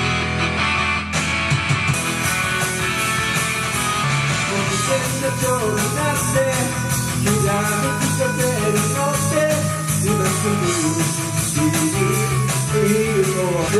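Karaoke backing track of a rock song with guitar playing. A voice singing the melody comes in about five seconds in.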